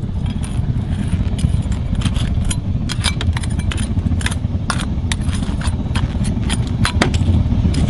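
A metal spoon scraping and clinking against the inside of a crucible as thick, half-set molten lava rock is dug out, in many short sharp clicks and scrapes. Under it runs a steady low roar.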